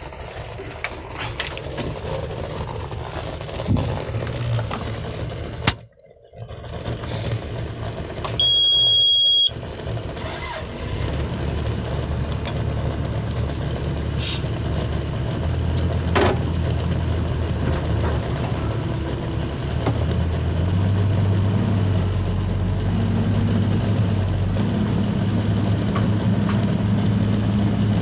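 Komatsu excavator's diesel engine running steadily, getting stronger and deeper in the last third. A single high, steady beep lasting about a second sounds about eight seconds in.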